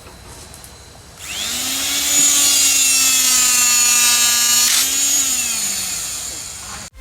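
Electric motor of a D25 handheld hydraulic rebar cutter starting about a second in and running with a steady whine for about four seconds. It then drops in pitch and winds down once the trigger is let go.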